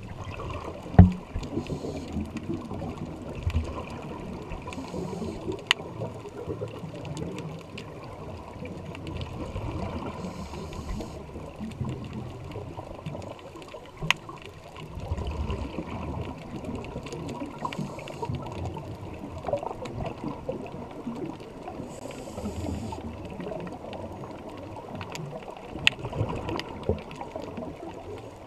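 Muffled underwater sound picked up by a dive camera in its housing: a constant low water rumble, broken several times by the hiss of the diver's scuba regulator exhaust bubbles, with a few sharp clicks.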